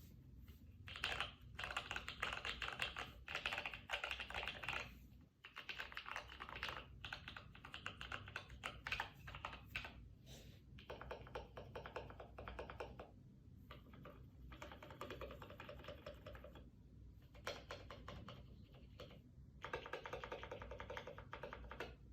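Typing on a GRID 650 mechanical keyboard with lubed Holy Panda tactile switches and PBT keycaps: fast runs of key clacks in bursts of a few seconds, broken by short pauses.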